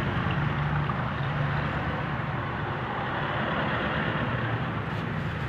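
Steady low mechanical rumble and hiss with a low hum and no distinct events, like a running engine.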